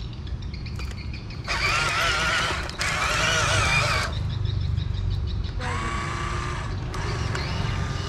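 Wavering chirping calls for a couple of seconds, over a steady low rumble. About six seconds in comes a short, steady electric whine from the RC dump truck's tipper as the sand-laden bed starts to lower.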